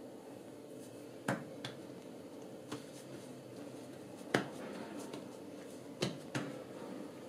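Hands pressing and stretching a flat round of bread dough on a tiled countertop: soft handling with about half a dozen sharp taps, irregularly spaced, as the hands meet the dough and tile.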